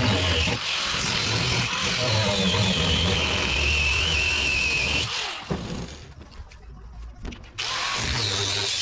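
Handheld power tool cutting through the floor of a pickup utility box, with a high whine that slowly drops in pitch as it works. It stops for about two seconds past the middle, then starts again.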